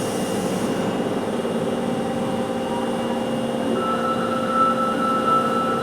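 Osaka Metro 22 series subway train running, a steady rumble with several humming tones; a steady high whine joins about two-thirds of the way through.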